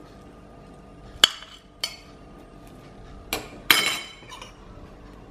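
Metal spoon clinking against ceramic plates and bowls as food is dished out: one sharp clink about a second in, a lighter one just after, and a quick run of clinks and scrapes a little before four seconds.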